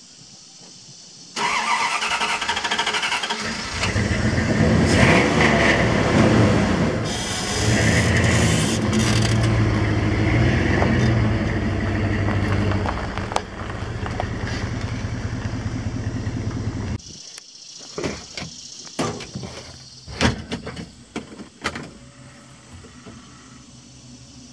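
Dodge Ram 1500 pickup's V8 engine starts suddenly and runs as the truck pulls the loaded utility trailer forward, then shuts off abruptly about 17 seconds in. A few clicks and knocks follow near the end.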